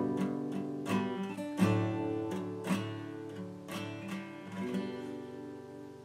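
Instrumental outro music: plucked string notes ringing over held chords, fading out over the last two seconds.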